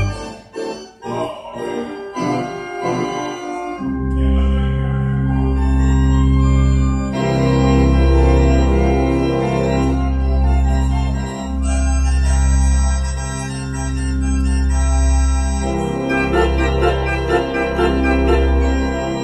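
Pipe organ playing a hymn in slow, sustained chords. For the first four seconds only the upper notes sound; then deep bass notes come in and are held under the changing chords.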